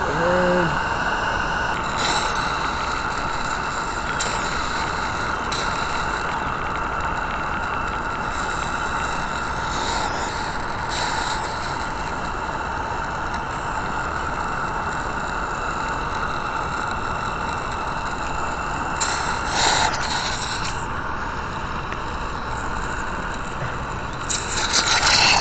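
Roundhouse Lady Anne Gauge One live-steam locomotive hissing steam steadily, with several short louder bursts of steam, the biggest near the end.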